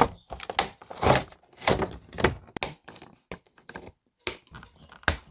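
A doll's cardboard box and its packaging being opened and handled: a series of separate thunks and rustles, with a brief pause about four seconds in.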